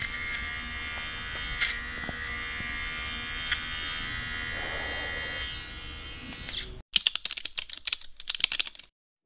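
Erazor portable ceramic-blade shaver running with a steady buzz, held against stubble on the upper lip, which cuts off abruptly after about six and a half seconds. A short, irregular run of light keyboard-typing clicks follows near the end.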